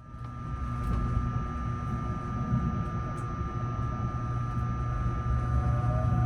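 Electric train at a station platform: a steady low rumble with a steady high electrical hum over it.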